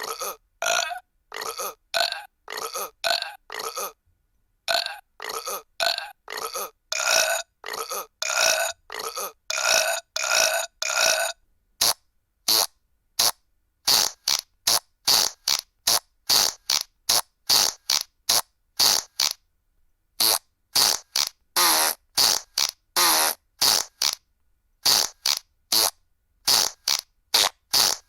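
Recorded burp sound effects played one after another, each under half a second long with short silent gaps, about two a second. From about twelve seconds in, the clips turn shorter and higher-pitched.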